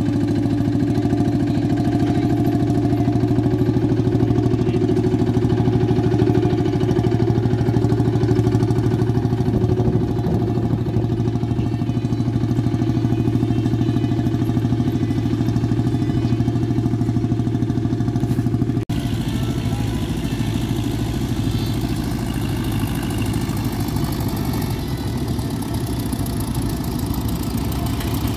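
Vintage tractor engine running steadily while pulling a cultivator through loose soil. About two-thirds of the way through, the sound cuts abruptly to another tractor working close by, with a rougher, noisier engine note.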